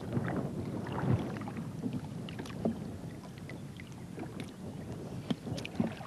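Wet fishing net being handled over the side of a wooden rowboat while a pike is worked free of it: water splashing and dripping with a steady rustle, and a few sharp knocks near the end.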